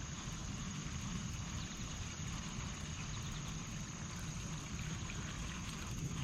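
Steady outdoor noise: a low rumble with a constant thin high hiss held at one pitch above it, with no distinct events.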